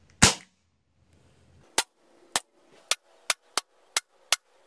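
FX Monsoon .22 regulated semi-automatic PCP air rifle firing a quick string of shots: one louder report shortly after the start, then after a pause of about a second and a half, seven sharp cracks about two a second. The shots come partway through a shot-count test on one air fill, with the regulator holding velocity steady at about 860 fps.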